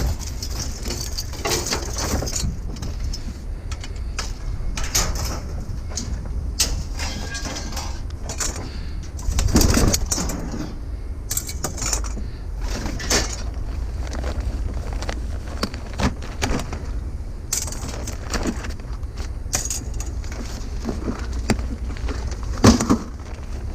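Hand work on scrap metal: irregular clicks, snips and clanks of clippers and metal parts as wire is cut and stripped off a piece, over a steady low rumble. The loudest knocks come about ten seconds in and near the end.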